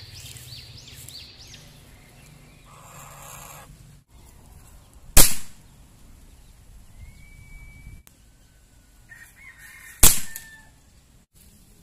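Two shots from a .22 CO2-powered hammer-type Nimrod air rifle, about five seconds apart, each a sharp crack with a brief ring after it. A chicken calls faintly between them.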